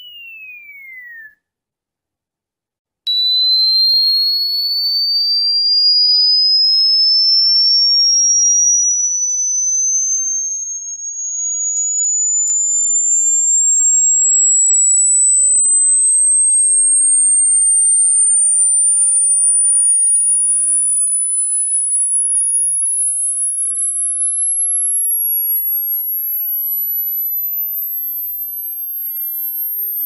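Electronic sine-tone sweep sold as a cricket repellent. A pure tone falls in pitch and stops just over a second in, and after a short silence a single high tone starts about three seconds in and glides slowly upward to a very high pitch. A second, fainter tone falls in pitch near the end.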